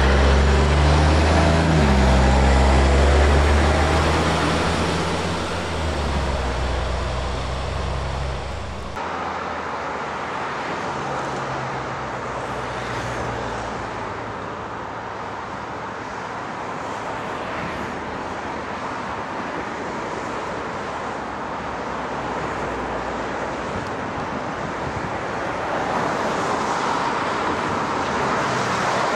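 An Oshkosh military tanker truck's diesel engine runs loud as the truck pulls away, its pitch shifting in steps. About nine seconds in, the sound cuts abruptly to steady dual-carriageway traffic noise from passing lorries and cars, which grows louder near the end as heavy trucks approach.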